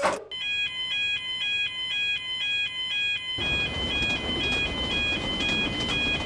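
Japanese level-crossing warning bell ringing its electronic "kan kan", alternating between two tones in a steady rhythm. About three seconds in, the rumble of a passing train joins under the bell.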